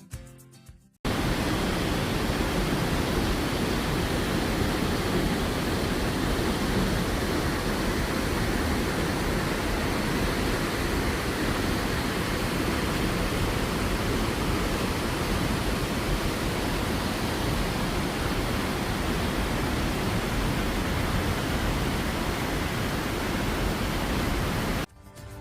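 Waterfall: a steady rush of falling water, cut in abruptly about a second in and cut off just before the end.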